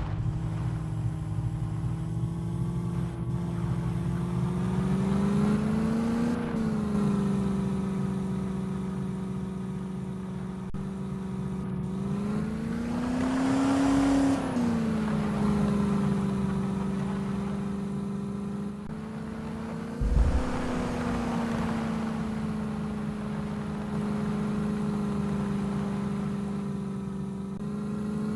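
Mahindra Thar engine running steadily, its pitch climbing and falling back twice as it is revved, with a single low thump about twenty seconds in.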